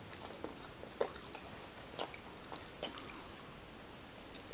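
A Kai Ken dog chewing, a few faint irregular crunching clicks of its jaws and mouth.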